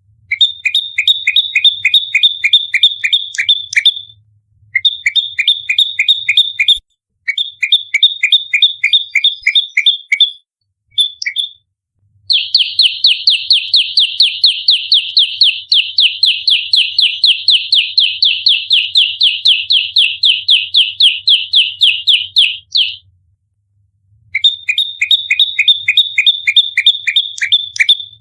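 Prenjak lumut songbird singing in fighting mode, firing rapid strings of sharp, high chirps, several notes a second, in bursts of a few seconds. The longest burst runs about ten seconds through the middle.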